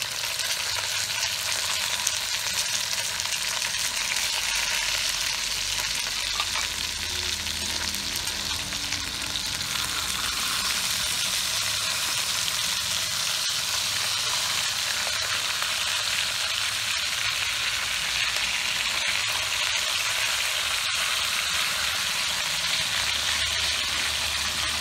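Whole fish sizzling in a hot aluminium pot, a steady hiss of frying.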